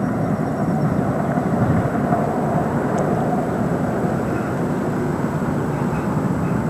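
Articulated light rail car running along the track, a steady low rumble without changes.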